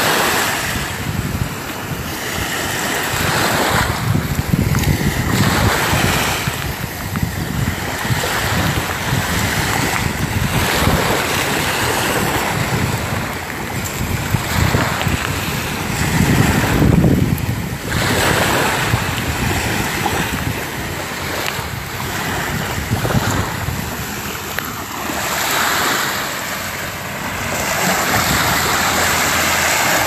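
Small Gulf of Mexico waves washing up on the sand, swelling and fading every few seconds, with wind buffeting the microphone.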